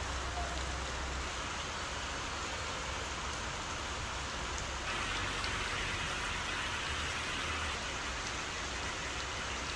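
Heavy rain pouring steadily, a continuous hiss of rain falling on a road, with a low rumble underneath. The hiss grows brighter about five seconds in.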